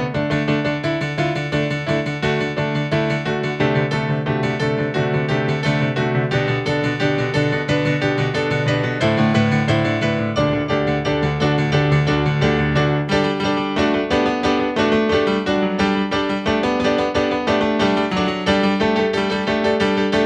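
Piano music played steadily, a flowing run of sustained notes and chords.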